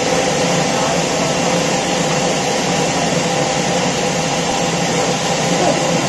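Sawmill band saw running steadily and loudly as a big log on the carriage is fed through the blade.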